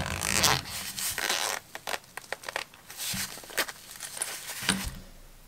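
Zipper of a black nylon zippered knife pouch being pulled open around the case in several short raspy drags, with knocks and rustling as the pouch is turned in the hands.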